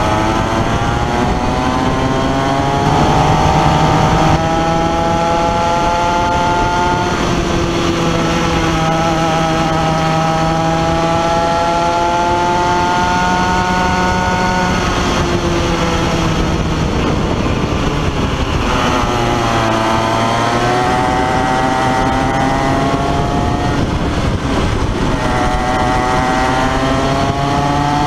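Comer two-stroke kid kart engine at racing speed, heard from onboard, its pitch climbing along the straights and dropping off into the corners, with sharp dips about two-thirds of the way through and again near the end before it winds back up.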